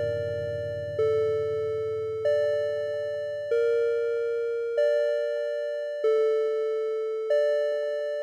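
Background music: a slow two-note figure of struck, ringing tones alternating higher and lower, one note about every 1.3 s, over a low sustained tone that fades out about halfway through.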